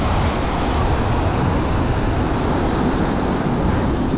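Wind blowing on the microphone over steady surf breaking on the beach, a constant noise heaviest in the low end.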